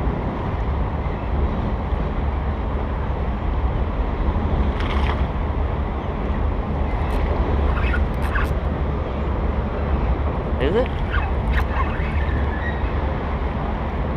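Steady rush of the river flowing over riffles, mixed with wind buffeting the microphone. A few light clicks come through about a third of the way in, in the middle and again near the end.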